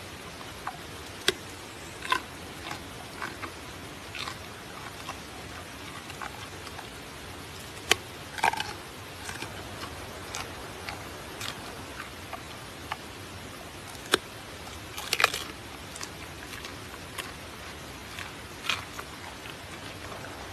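Giant panda biting and chewing a raw carrot: irregular crisp crunches and snaps over a steady hiss, the loudest about 8 seconds in and a short cluster around 15 seconds.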